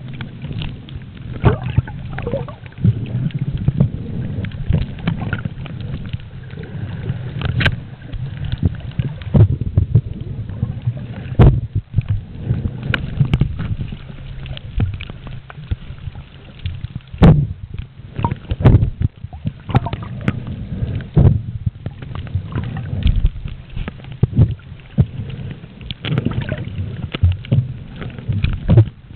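Muffled underwater noise picked up by a swimmer's submerged camera: a steady low rush of water moving against it, broken by scattered knocks and pops at irregular moments.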